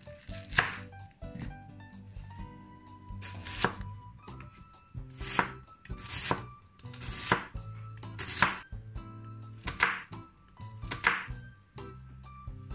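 Broad-bladed kitchen knife slicing through a raw white onion and knocking on a wooden cutting board: about eight separate crunching cuts, one to two seconds apart, over light background music.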